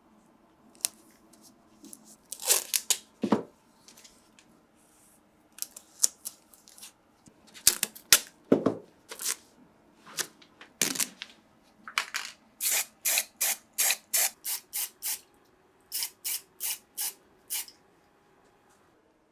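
Hand work on a diecast model car: scattered short scrapes and clicks, then a steady run of quick strokes, about three a second, with a short break in the middle.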